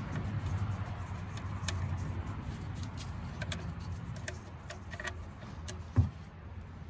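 Scattered light metallic clicks and ticks from the tractor's loosened drain plug and tools being handled, over a steady low rumble, then one dull thump about six seconds in.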